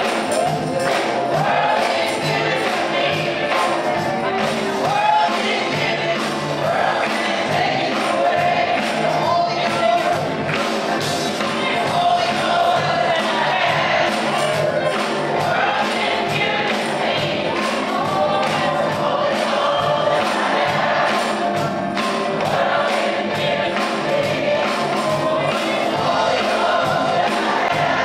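Gospel choir and congregation singing together over a steady beat.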